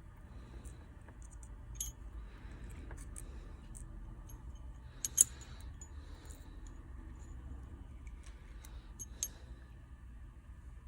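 Light clicks and taps of small repair tools and phone parts being handled, with one sharper click about five seconds in and another near nine seconds, over a low steady hum.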